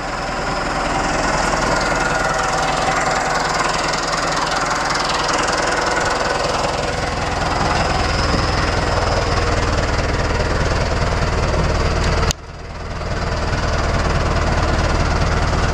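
Tractor engine running steadily, heard close up from on board, its low rumble deepening about seven seconds in. About twelve seconds in the sound drops out abruptly and swells back over a second or so.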